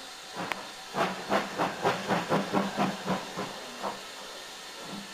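Steam locomotive getting under way: a steady hiss of escaping steam, with a quick run of exhaust chuffs, about four a second, that starts about a second in and fades out after a few seconds.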